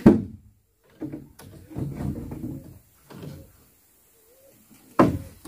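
Two loud knocks, one right at the start and one about five seconds in, with softer clattering and thuds in between.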